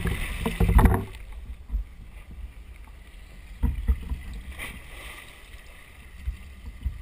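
Muffled water and boat noise through a GoPro's underwater housing: a loud rushing noise for about the first second, then a steady low rumble broken by a few short dull knocks.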